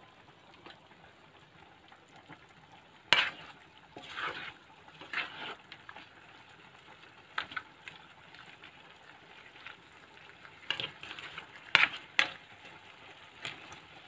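Onion, carrot and radish slices sizzling faintly in a pan of sauce, while a utensil stirs them with scattered short scrapes and knocks against the pan. The loudest strokes come about three seconds in and again near the end.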